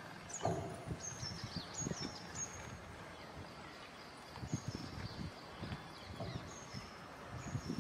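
Birds chirping, short high notes that drop in pitch, some in quick runs, over steady outdoor background noise and scattered low thumps.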